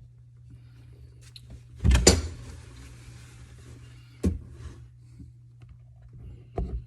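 Knocks and handling noise from working in the cabinet under a bathroom vanity sink: one loud knock about two seconds in, followed by about a second of rustling, then a sharper knock about four seconds in and a smaller one near the end, over a steady low hum.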